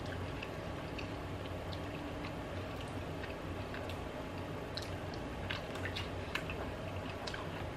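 Close-miked eating sounds: a mouth chewing soft food with small wet clicks and smacks. About six seconds in comes a bite of chicken sausage topped with cottage cheese and mustard, and the clicks grow more frequent in the second half.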